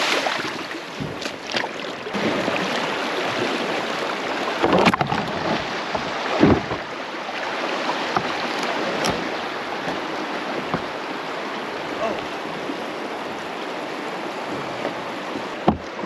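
Creek water rushing through a shallow riffle and splashing around a person wading and towing a kayak by a rope, with a few short knocks along the way.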